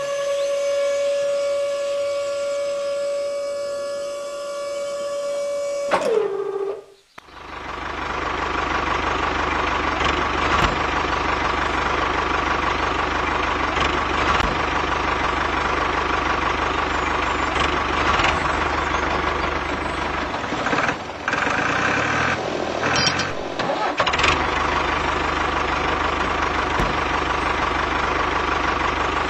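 A steady high-pitched whine that drops in pitch and dies away about six seconds in. After a brief pause, a tractor engine runs steadily for the rest of the time.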